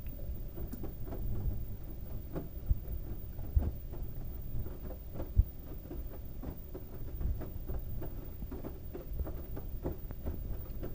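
LG washing machine drum turning a load of wet towels: a low rumble with irregular soft knocks as the load tumbles, and a few sharper thumps in the first half.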